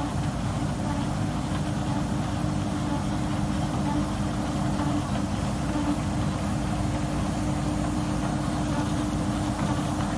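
A machine's motor running steadily, an even low hum with a few held tones.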